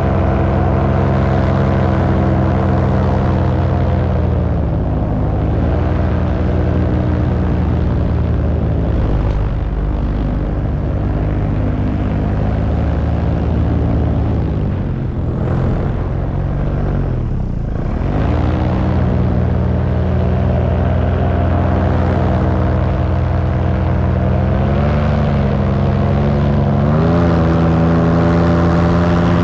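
Paramotor engine and propeller running loud and steady in flight. The pitch sinks and comes back up several times as the throttle is eased off and reopened, with the deepest drop about seventeen seconds in and a step up near the end.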